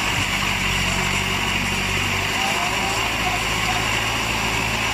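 Off-road 4×4 jeep's engine running at a steady speed, a constant low hum with a rushing noise over it.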